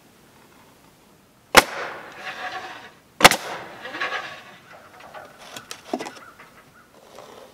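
Pneumatic crown stapler firing twice into cedar shingles, two sharp shots about a second and a half apart, each followed by a short hiss and rattle. A few lighter knocks follow near the end as the shingle is handled.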